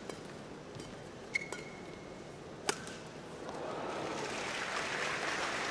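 Badminton rally: racket hits on the shuttlecock and a short shoe squeak on the court about a second and a half in, then one sharp crack of a racket hit near three seconds. After it the crowd's applause and murmur swell as the point ends.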